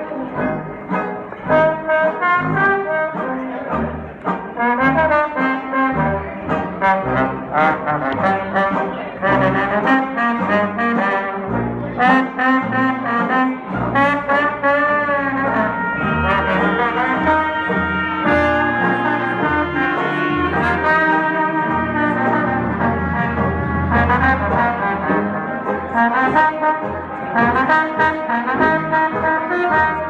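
Live traditional jazz band playing: trumpet and trombone lead the tune over banjo and drums, with steady drum hits keeping the beat.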